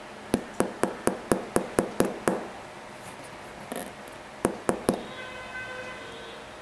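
A finger tapping on the hard plastic plate in an Air Jordan 13 sneaker's outsole: a quick run of about nine sharp taps, then three more a couple of seconds later.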